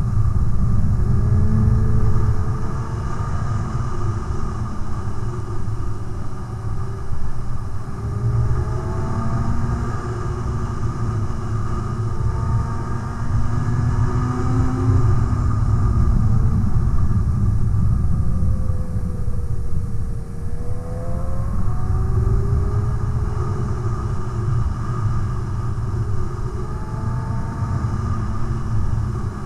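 Sport motorcycle engine heard from on board while riding, its pitch rising and falling every few seconds with throttle and gear changes, over a heavy rumble of wind on the microphone.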